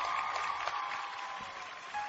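Studio audience applauding and cheering, with one long high cheer held over the clapping that fades out.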